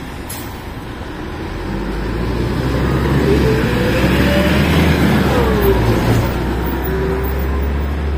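Ikarus 280 articulated bus's diesel engine pulling away from a stop and passing close by, the engine noise building up and easing off again. Over a steady low drone, a whine rises, drops away, then holds steady.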